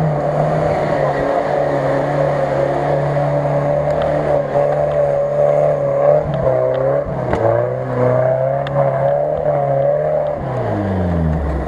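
Off-road 4x4 engine revving hard under load as the truck churns through deep mud. The revs hold high and waver, with a few sharp ticks of flung debris, then fall away near the end.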